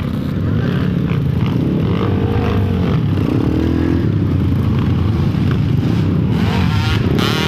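A motor vehicle running: a loud, steady low rumble, with a few brief tones that rise and fall over it around two to three seconds in and again near the end.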